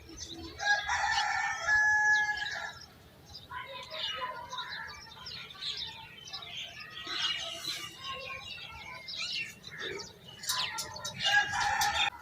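Birds calling: two long, drawn-out calls of steady pitch, one about a second in and one near the end, with short chirps scattered between them.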